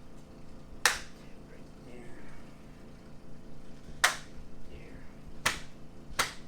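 Four short, sharp snaps: one about a second in, then three more close together between about four and six seconds in.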